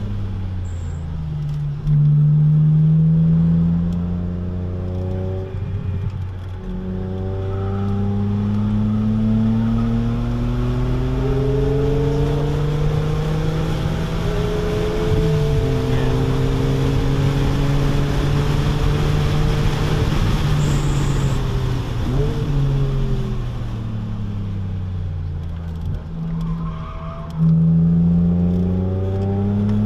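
2006 BMW Z4 M's S54 straight-six with a muffler delete, heard from inside the open cabin on track: it accelerates hard with the revs climbing through upshifts, holds at speed, then drops off on deceleration and goes back to full throttle near the end.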